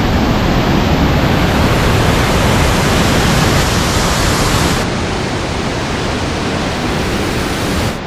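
Loud, steady roar of a large waterfall on the Kaveri River at Hogenakkal, water crashing over the rocks. About five seconds in it turns a little quieter and duller.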